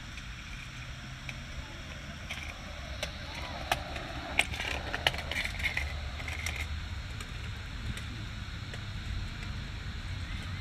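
Outdoor soccer game ambience: distant voices of players and onlookers over a steady low rumble, with a few sharp knocks clustered about four to five seconds in.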